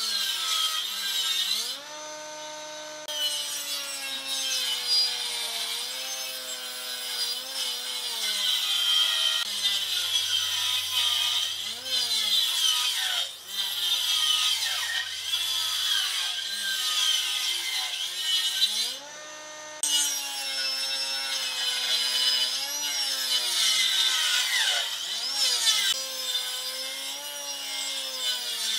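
Combination jointer-planer planing a long wooden board: a dense, high cutting noise over the motor's hum, whose pitch sags under the load of the cut and recovers. The cutting stops briefly twice, about two seconds in and again about two-thirds of the way through.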